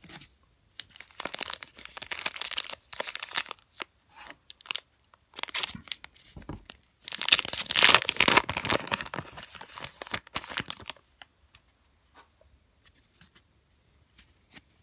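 Foil wrapper of a baseball card pack being torn open and crinkled by hand, in three bursts of tearing and rustling, the loudest around the middle. After that only a few faint clicks.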